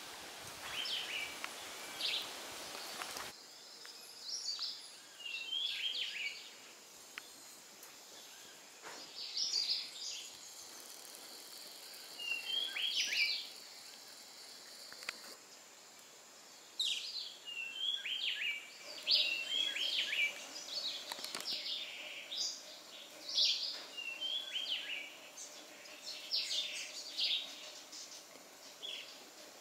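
Several wild birds calling in the tree canopy: short chirps and whistled notes in quick clusters every second or two.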